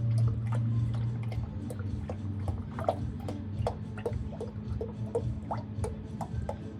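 Gear oil dripping from the Zeekr 001's front reduction gearbox during an oil change: irregular drips, a few a second, over a steady low hum.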